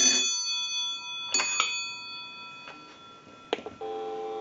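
Kellogg wooden wall crank telephone's original bells ringing on a ring cycle from a line analyzer, cutting off just after the start and dying away, with two light strikes a little over a second in. A click follows, and steady dial tone comes on near the end.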